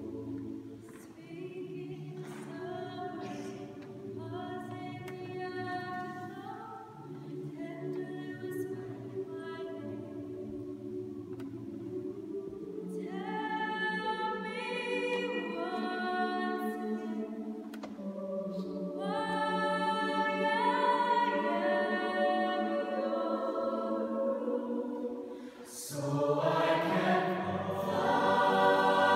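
Mixed chamber choir singing in a church, holding low chords under a higher melody that moves note by note. About 26 seconds in, the full choir swells louder.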